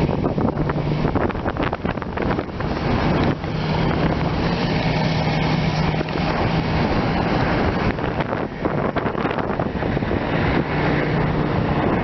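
Strong wind buffeting the microphone in rough, crackling gusts, over a steady low engine hum that fades in and out.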